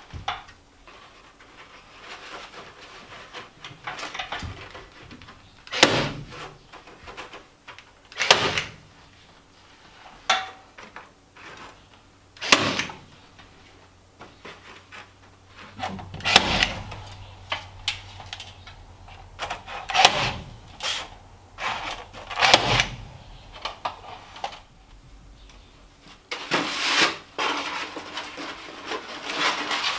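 A staple gun fires staples through foam rafter vent baffles into the roof sheathing: about half a dozen sharp clacks a few seconds apart. Near the end there is rustling as the foam baffle is handled.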